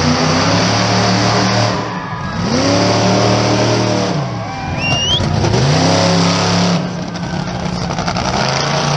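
Monster truck engine revving hard as the truck drives out across the dirt arena. It is let off and revved back up about three times. A short, high rising whistle sounds about five seconds in.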